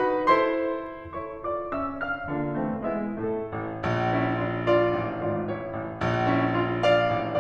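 Background piano music: struck notes ringing and fading, turning fuller with added low bass notes about four seconds in.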